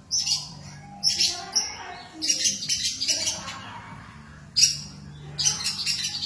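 A songbird singing in bursts of quick, high chirping phrases, about one a second, over a faint steady low hum.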